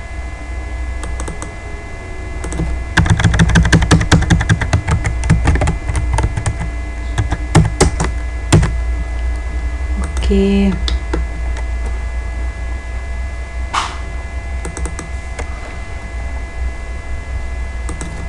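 Computer keyboard typing: a fast run of keystrokes about three seconds in, then scattered single key presses, over a steady low electrical hum.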